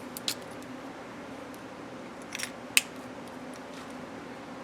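A few short, crisp clicks and rustles from handling the planner and its contents, over a steady low hum. Two clicks come close together a little past the middle.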